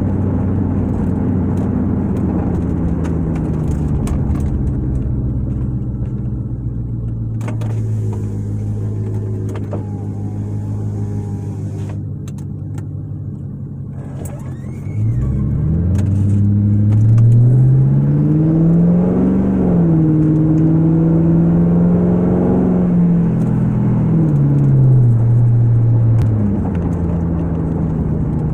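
2000 Ford Crown Victoria's 4.6-litre V8 with catalytic converters and mufflers removed, heard from inside the cabin with the windows up: a steady exhaust drone. For the first half it eases off and falls slowly in pitch, then about halfway through it gets louder and rises in pitch as the car accelerates, holds, and drops back down near the end.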